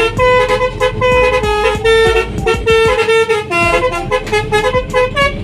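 Bus 'om telolet' multi-tone air horn playing a quick melody of short honked notes, with a few held longer.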